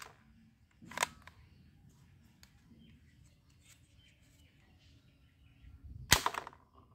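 Hard plastic clicks and knocks from toy guns being handled: one sharp click about a second in, a few faint ticks, then a louder cluster of clicks about six seconds in.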